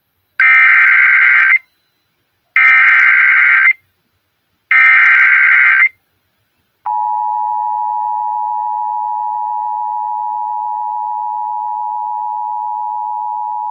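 Emergency Alert System tones: three bursts of SAME header data, about a second each, then, from about seven seconds in, the steady EAS two-tone attention signal. They open a broadcast severe thunderstorm warning.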